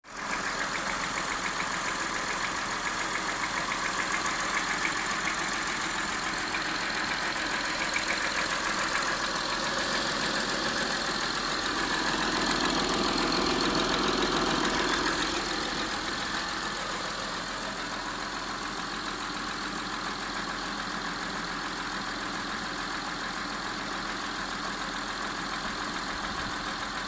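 First-generation Honda Ridgeline's 3.5-litre V6 running half-warm with a rapid knocking sound, which the owner says is louder and clearer when the engine is cold. It gets louder for a few seconds around the middle, then settles.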